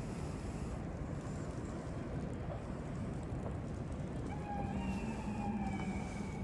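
Strong wind buffeting the microphone, a steady low rumble. Near the end a faint, drawn-out pitched tone sounds for about two seconds, sliding slightly down in pitch.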